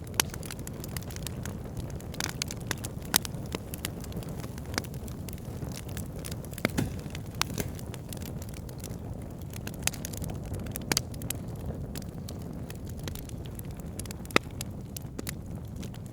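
Wood fire crackling in a fireplace: a steady low rumble of burning with irregular sharp pops and snaps, a few of them much louder than the rest.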